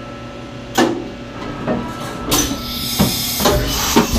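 Fadal vertical machining centre changing a tool over a steady machine hum: the tool-changer carousel moves in with a clack about a second in, then from about halfway a loud hiss of air as the drawbar releases the tool, with a few light knocks. The tool lets go without a clunk, which sounds right and is the sign that the spindle now lines up better with the tool changer.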